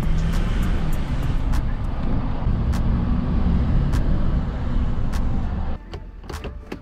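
Cab interior sound of a 2015 GMC Sierra's 6.6-litre Duramax turbo-diesel V8 driving the truck along, a steady low rumble with scattered light clicks. The engine sound drops away sharply about six seconds in.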